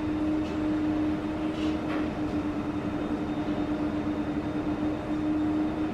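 Steady mechanical hum: one constant tone held throughout over a continuous low rumble.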